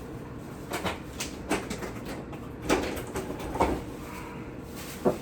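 Plastic drink bottles and groceries being set into a refrigerator: a series of irregular knocks and clunks against the fridge shelves and door.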